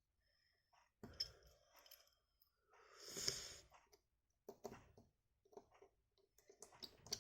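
Faint scattered clicks and small taps of a precision screwdriver and small metal screws while the phone's internal screws are refitted, with a brief soft hiss about three seconds in.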